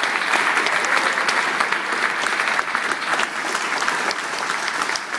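Audience applauding, a dense, even patter of many hands clapping that eases off near the end.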